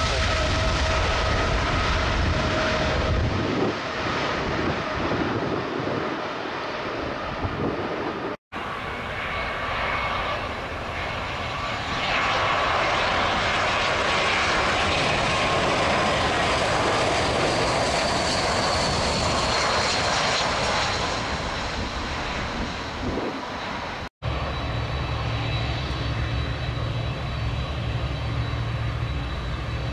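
Jet airliner engines in three takes that end abruptly at edits. First a Boeing 777 freighter's engines rumble as it rolls on the runway. Then an Airbus A320 passes on final approach, its engine noise swelling and fading, and finally a Boeing 787 taxis with a steady low idle hum and a thin high whine.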